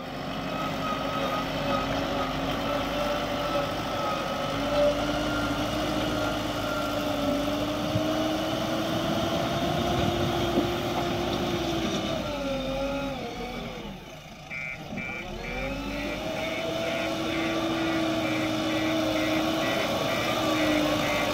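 JCB 3DX backhoe loader's diesel engine running under load as the front bucket levels earth. Its pitch sags about two-thirds of the way in and then climbs back. From there a regular high-pitched beeping sounds about twice a second.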